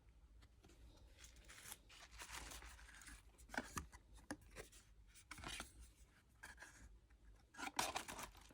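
Faint, intermittent rustling and brushing of packaging being handled during unboxing, with a few louder scrapes about three and a half seconds in and again near the end.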